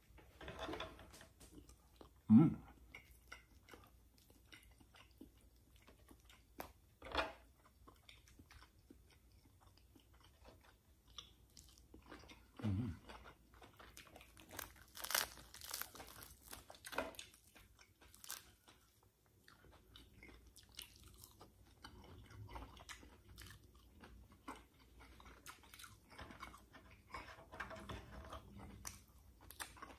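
A person eating close to the microphone: chewing and crunching fried milkfish and rice eaten by hand, with many small clicks and mouth smacks. Two short low thuds come about two seconds and thirteen seconds in.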